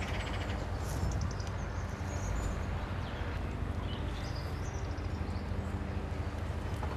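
Outdoor garden ambience: a steady low rumble with scattered short bird chirps.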